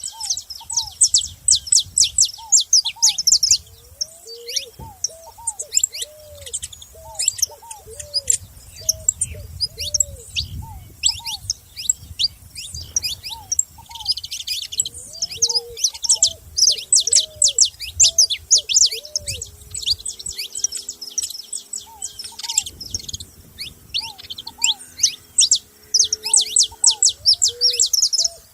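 Several saffron finches calling with a dense, continuous stream of sharp, high chirps. Beneath them another bird repeats lower, arched calls, with a longer held call about two-thirds of the way through.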